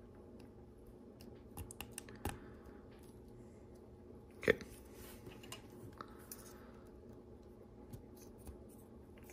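Lego Technic plastic pieces clicking and rattling as they are handled and pressed together, with scattered small clicks and one sharp snap about four and a half seconds in.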